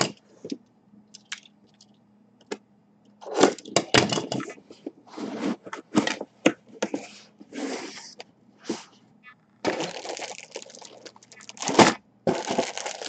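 A white cardboard jersey box being handled and its lid taken off, giving irregular scraping and crackling of cardboard and of the plastic bag around the jersey inside.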